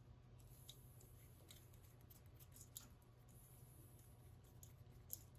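Near silence over a faint low hum, broken by a few faint small metallic clicks and ticks as stainless steel bolts are threaded by hand into the stirred cell's top flange.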